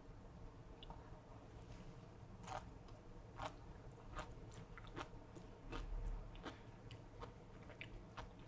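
Sea grapes (seaweed) being chewed with the mouth close to the microphone: a string of small sharp wet clicks and pops, roughly one a second.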